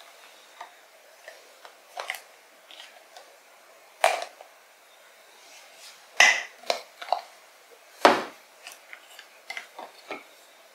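Plastic cooking-oil bottle being worked open by hand: a series of sharp plastic clicks and cracks at its neck, the loudest about four, six and eight seconds in, with smaller ticks and handling noise between.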